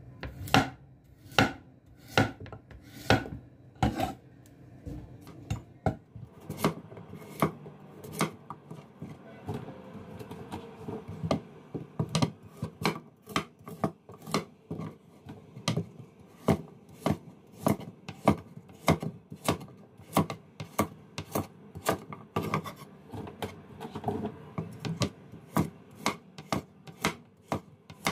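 Steel cleaver chopping pumpkin into cubes on a wooden cutting board: a steady run of sharp knocks on the board, a little slower over the first few seconds, then about two a second.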